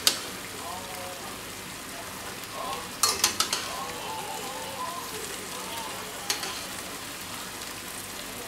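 Tomato and beef sauce sizzling and simmering in a small frying pan over a gas flame, with spaghetti just added. A few sharp clicks stand out over the steady sizzle: four in quick succession about three seconds in and one more a few seconds later.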